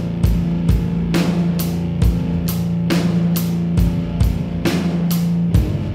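Rock music with a steady drum beat, electric guitar and bass.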